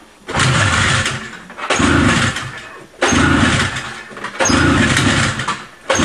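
Vintage Moto-Ski snowmobile's two-stroke engine being pull-started after a squirt of prime. It fires and runs briefly on each of four yanks, about one every second and a half, fading out each time before the next pull without settling into a steady idle.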